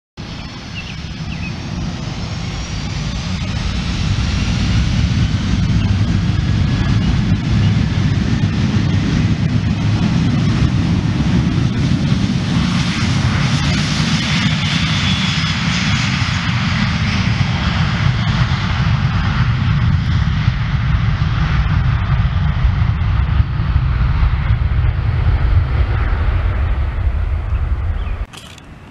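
Boeing 737 twin jet engines at takeoff power during the takeoff roll: a loud, steady rumble with high whining tones that swells as the jet rolls past, through to lift-off. The sound cuts off abruptly near the end.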